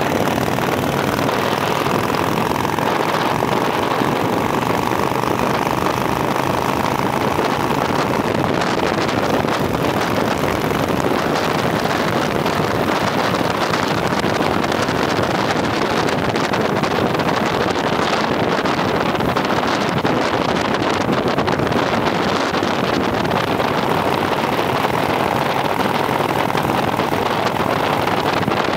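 Motorcycle riding at road speed: steady wind rush on the microphone mixed with the engine's drone. A higher hum rides on top for the first several seconds and comes back near the end.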